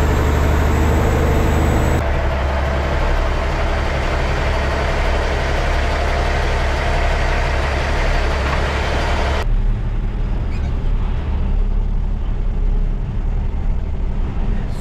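The diesel engine of a 2007 Kenworth dump truck runs steadily with a low rumble. Its sound changes abruptly twice, about two seconds in and again near ten seconds in, leaving mostly the low rumble at the end.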